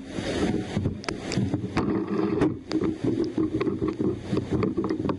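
Waterfall rushing, a dense churning noise, with wind buffeting the microphone and scattered sharp clicks.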